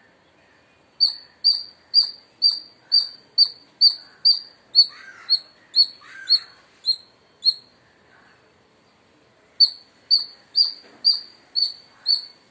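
Indian palm squirrel chirping loudly: a run of sharp, high chirps about two a second, a pause of about two seconds, then another run.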